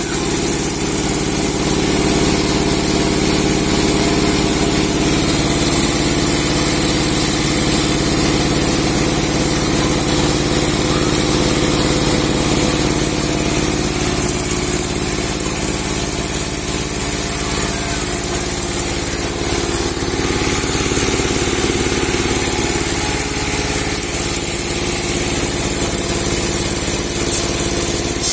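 The engine of a large 30 hp sawmill running steadily at an even pitch.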